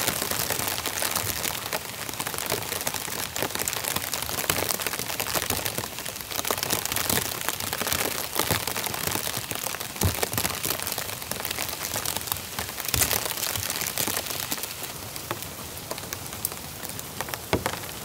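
Steady rain pattering densely on the campsite, a thick stream of individual drops, with a few sharper cracks now and then.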